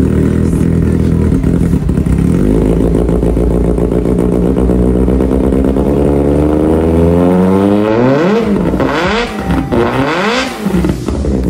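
Kawasaki ZX-6R's inline-four engine running through an SC Project slip-on exhaust: idling steadily at first, then revved in about three quick blips in the second half, the pitch rising and falling with each.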